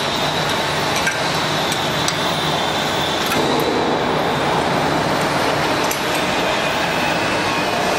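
LZ-1500L open dual-shaft mixer running under test: a steady mechanical noise from its electric motors driving the anchor agitator and high-speed dispersers. A few light clicks sound over it.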